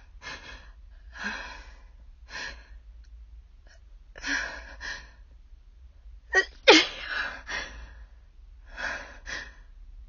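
A woman with a cold sneezing, with sharp breaths in between; the loudest, sharpest sneeze comes about two-thirds of the way through.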